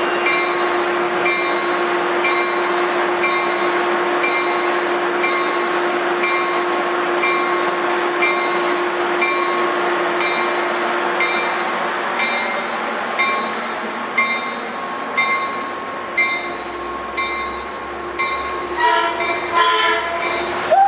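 Metrolink bilevel commuter train approaching and passing close by: a steady drone with a bell ringing evenly about every 0.7 seconds, and a burst of horn-like tones near the end as the cars reach the camera.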